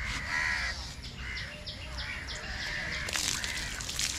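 Crows cawing, about five harsh calls in a row. About three seconds in comes a short splash of water poured from a mug over the hanging goat carcass.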